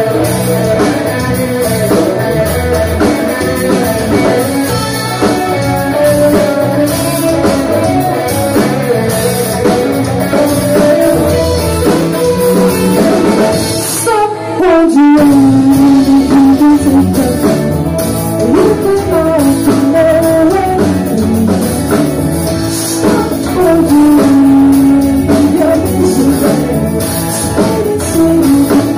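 Live rock band playing: electric guitars and drum kit with a singer. The music drops out briefly about halfway through, then the band comes back in louder.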